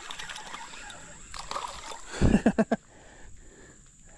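Hooked fish splashing and sloshing at the water's surface as it is reeled toward the bank, with a short louder splash a little past two seconds in. A steady insect trill runs behind it.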